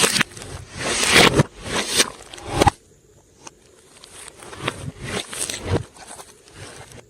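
Slime being squished and kneaded by hand, sticky squishes full of small clicks. A run of loud squishes stops about three seconds in; after a short pause, softer ones follow.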